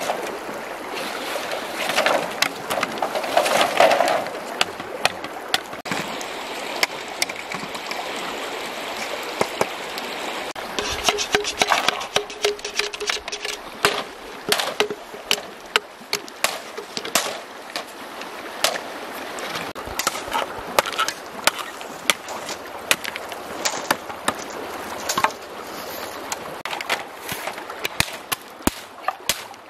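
Machete striking green bamboo poles: a long, irregular series of sharp knocks as the bamboo is cut, coming thicker in the second half, with a river running steadily underneath.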